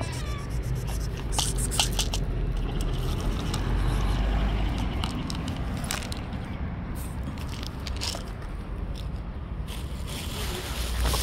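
A cat crunching dry kibble off the pavement in scattered small clicks, over a low steady rumble. In the first couple of seconds there are footsteps and scraping on asphalt.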